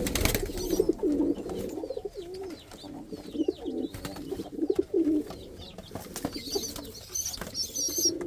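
Domestic pigeons cooing over and over in a loft, low warbling coos, with higher chirping near the end. A brief knock right at the start.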